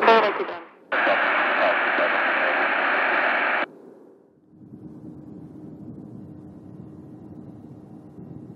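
Airband radio receiver: a short falling chirp, then loud squelch static for about three seconds that cuts off suddenly, followed by a quieter steady hiss with a faint hum.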